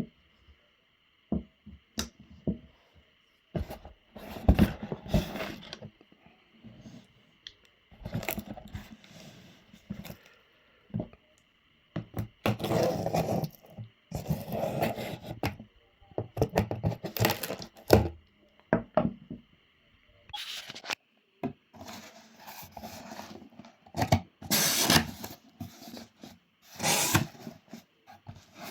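A crossbody bag and its packaging being handled and unwrapped: irregular bursts of rustling and scraping, with sharp clicks and a few knocks in between.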